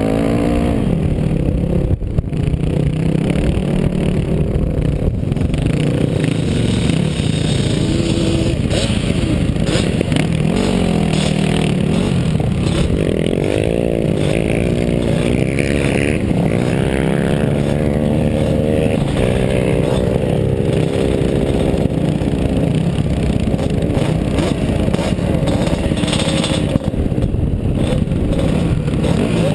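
Single-cylinder four-stroke engine of a 1999 Yamaha WR400F dirt bike, heard from on the bike, running hard and revving up and down repeatedly as it is ridden across sand.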